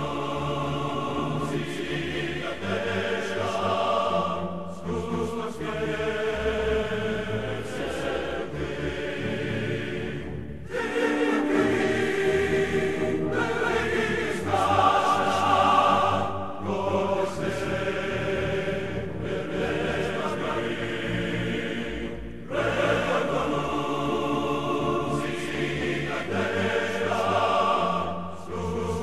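Choral music: a choir singing slow, held chords, with short breaks about ten and twenty-two seconds in.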